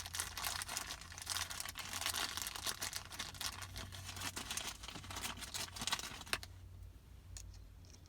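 Crinkling and rustling from handling the shift knob's small adapter parts and their packaging, a dense run of small clicks for about six seconds, then only a few faint ticks.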